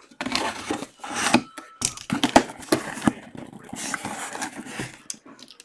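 Cardboard box being handled and opened by hand: irregular scraping and rustling of cardboard with short knocks.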